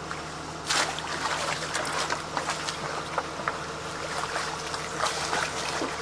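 Water splashing and trickling in irregular bursts, the loudest splash about a second in, over a steady low hum.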